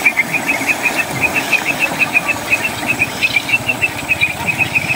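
A small engine running with a fast, even knock, about six beats a second.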